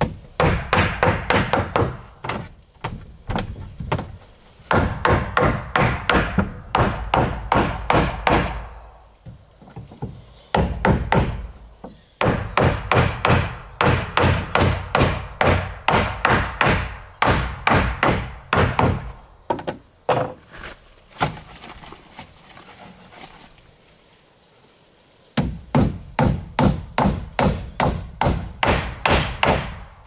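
Hammer driving nails into wooden floorboards: runs of quick, evenly spaced blows, broken by short pauses between nails and one longer pause about three quarters of the way through.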